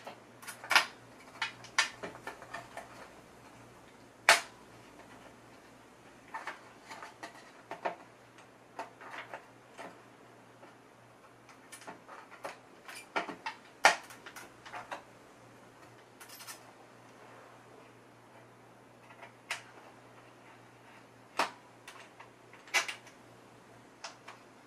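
Irregular metallic clicks and taps of small screws and fingers working against the sheet metal of an IMSAI 8080's front panel, as the screws are coaxed into captive nuts. A few clicks stand out louder, over a faint steady hum.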